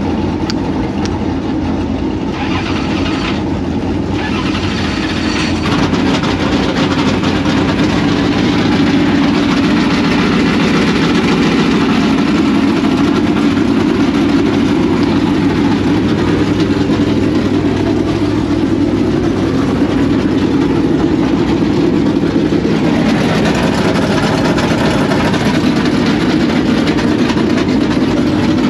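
Dirt late model race car V8 engines running loud and steady, getting louder about six seconds in.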